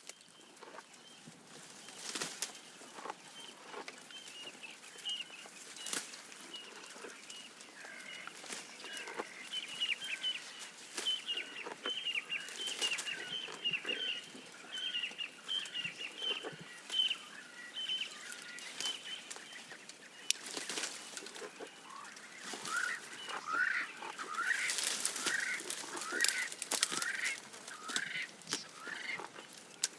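Birds calling: a long run of quick, repeated high chirps, then a series of rising call notes near the end. Scattered crunching and rustling clicks, from a giraffe feeding on leaves, run underneath.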